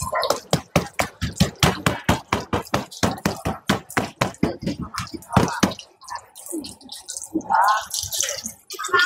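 Rapid, even tapping, about six strikes a second, that stops about six seconds in, followed by a few scattered knocks.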